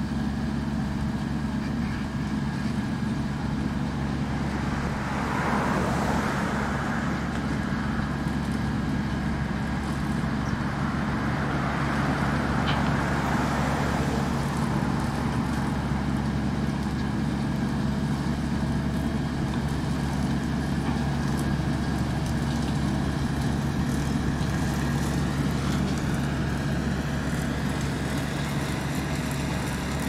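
Self-propelled Grimme Tectron potato harvester and New Holland tractor working side by side: a steady diesel engine hum under load, with a rushing mechanical noise that swells twice.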